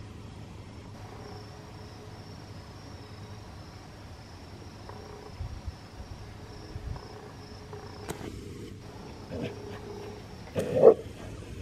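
Steady high-pitched trilling of insects in the grass, with a basset hound giving one loud bay about a second before the end, and a few faint yips before it.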